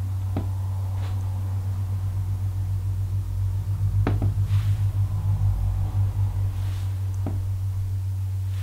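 Steady low electrical hum, wavering in level through the middle, with a few faint clicks.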